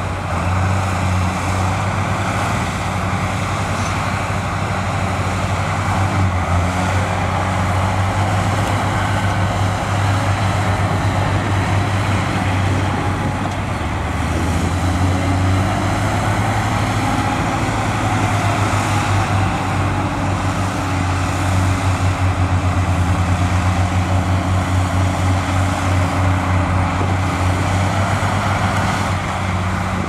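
Heavy diesel engine of an earthmoving machine running continuously with a deep, rapid throb, together with a steady mechanical rumble. The throb grows stronger and more pulsing about two-thirds of the way through.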